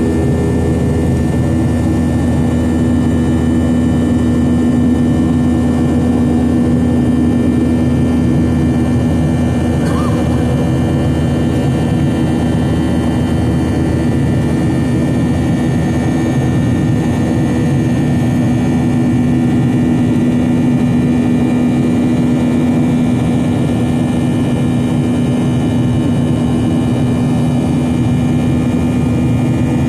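Boeing 737-800's CFM56 jet engines running steadily, heard inside the passenger cabin as a constant drone with several held tones over a low rush of air noise.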